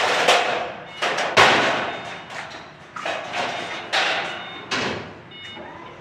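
Light-gauge steel studs and track being banged and knocked into place overhead: an irregular series of about eight sharp metallic bangs with a ringing echo, the loudest about a second and a half in.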